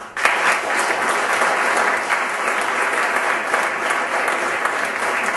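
Audience applauding, breaking out abruptly and holding steady.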